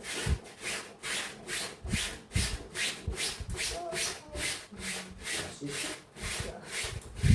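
Rhythmic scrubbing strokes, about three a second, with a few dull knocks, the loudest near the end.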